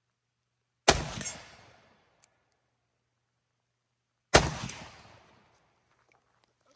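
Two single rifle shots about three and a half seconds apart, each a sharp crack with an echo dying away over about a second.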